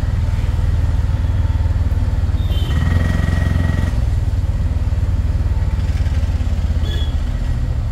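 Motorcycle engine running steadily with a low, even rumble while riding along. A brief high steady tone sounds about three seconds in.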